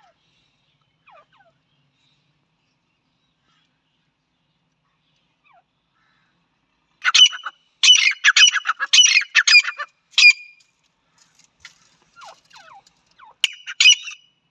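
Grey francolin (teetar) hen calling. After a few faint short falling notes, a loud run of rapid, harsh, repeated notes starts about seven seconds in and lasts some three seconds, followed by softer scattered notes and another short loud burst near the end.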